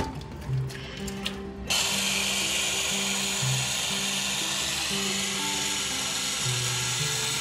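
Ninja press-top blender motor running, held on by hand, blending hot soup to make it smoother. It starts a little under two seconds in, runs steadily for about six seconds and cuts off near the end.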